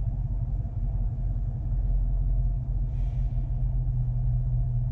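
Steady low engine drone of a Chevrolet Silverado pickup heard from inside the cab.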